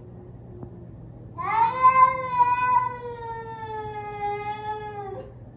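A domestic cat giving one long, drawn-out meow that starts about a second and a half in, rises at first, then sinks slowly in pitch before breaking off.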